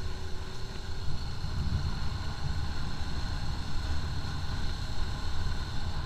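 Motorcycle engine running steadily under load while the bike climbs a steep road, with wind rumbling on the bike-mounted camera's microphone.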